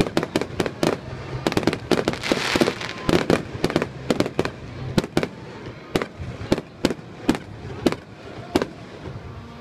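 Aerial fireworks shells bursting in a rapid series of sharp bangs, several a second at first and spacing out toward the end, with a stretch of crackling about two to three seconds in.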